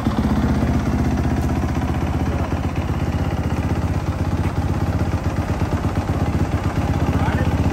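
2022 Yamaha YZ dirt bike's single-cylinder engine idling steadily on its stand, still warming up after a cold start.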